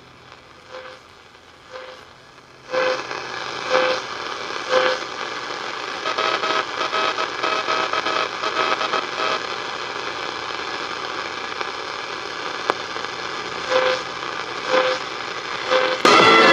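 A Sanyo Campanetta multiband radio's speaker hissing with static and a faint tick about once a second; the hiss jumps louder about three seconds in. Just before the end a loud signal breaks in with a falling whistle.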